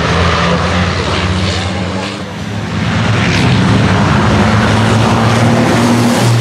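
Racing trucks' diesel engines running hard past the circuit as a steady, loud drone. The sound dips briefly about two seconds in, then builds again.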